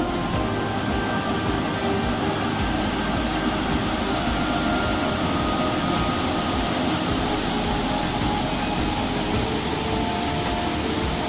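Waterfall rapids: river water rushing steadily over and between sandstone rock ledges.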